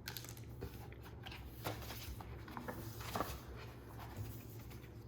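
Faint rustling and a few light clicks as album contents (photo cards, pendants, standees in their packaging) are handled, over a low steady room hum.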